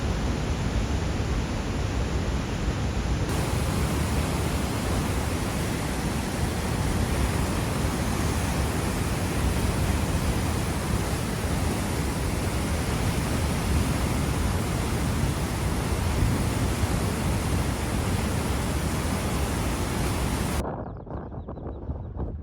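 Loud steady rushing noise, spread evenly from low to high pitch, which cuts off suddenly near the end into a quieter, duller background.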